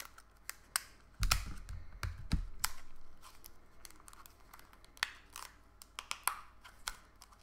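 A stiff plastic clamshell of wax melts, one that is hard to open, being pried at by hand: scattered sharp clicks and crackles, with a cluster of dull thumps between about one and two and a half seconds in.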